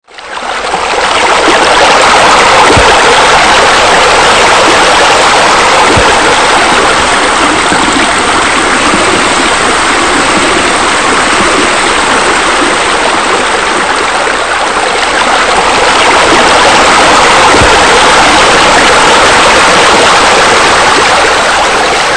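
Loud, steady rush of falling water, like a waterfall or spillway, fading in over the first second.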